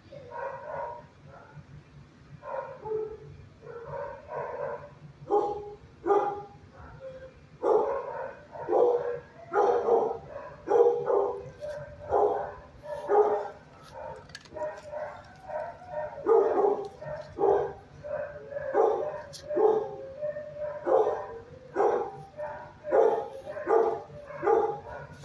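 Shelter dogs barking repeatedly, a few scattered barks at first and then a steady run of about one to two barks a second from roughly eight seconds in.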